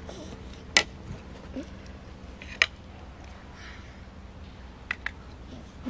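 Fork tapping and scraping against a plate while food is cut up and eaten: two sharp clinks about two seconds apart, then two lighter taps in quick succession near the end.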